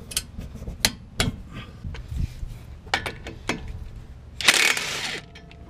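Sharp metal clicks and clinks from hand tools as bolts are tightened with a torque wrench, with a short rasping burst about four and a half seconds in.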